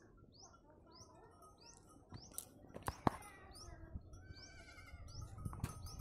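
Goats bleating faintly, with a short high chirp repeating about twice a second throughout and a few sharp knocks around the middle and near the end.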